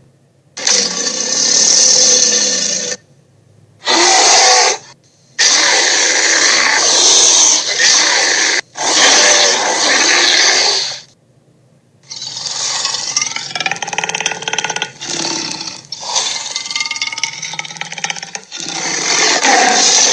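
Dinosaur roar sound effects played one after another: loud, rough roars of one to several seconds each, separated by short silent gaps.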